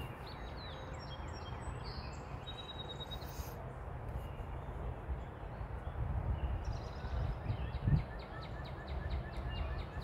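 Faint birdsong from a northern cardinal and a song sparrow over a steady low rumble. Near the end comes a quick run of short repeated notes, and there is a single soft thump about eight seconds in.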